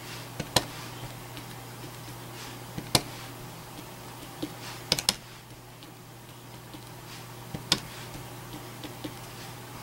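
Light, sharp taps of a small wooden-handled stubby rubber stamp being pressed down onto card stock, about eight to ten of them at irregular spacing, over a faint steady low hum.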